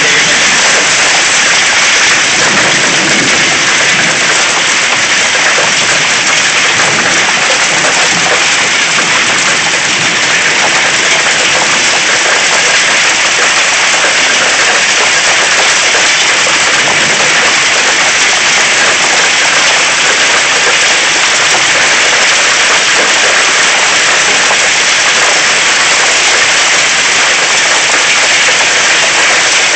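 Heavy rain pouring down in a thunderstorm, a loud, steady, even hiss that does not let up.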